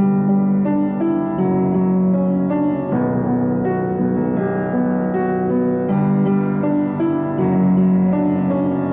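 Background piano music: a gentle melody whose notes change about every half second.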